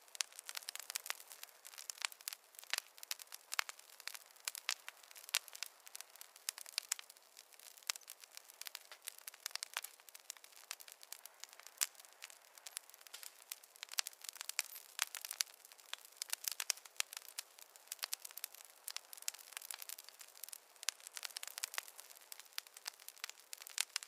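Wood campfire crackling and popping: a steady run of irregular sharp snaps, several a second, with no low rumble.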